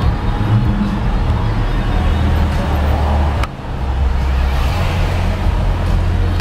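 Road traffic: cars driving past on a busy street, a steady heavy low rumble. A sharp click about three and a half seconds in.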